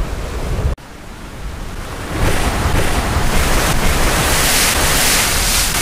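Recording of ocean surf: a steady wash of breaking waves that drops off abruptly about a second in, then swells back up over the next second and runs on at full strength.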